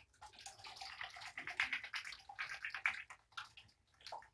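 A small bottle of liquid medication is shaken rapidly by hand, its contents sloshing in quick strokes for about three seconds, tailing off into a few lighter shakes near the end.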